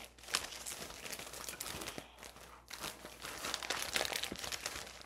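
Clear plastic zipper bag crinkling and rustling in the hands as a wrapped bundle of chicken bones is pushed into it, in an irregular run of crackles that is busiest in the second half.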